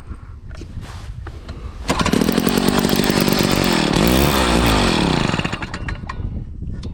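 Gas ice auger engine catching after being pull-started and running for about three and a half seconds, its pitch rising and falling unevenly before it dies away. It is hard-starting and won't keep running, which the owner puts down to a carburetor that needs adjusting or a new carburetor kit.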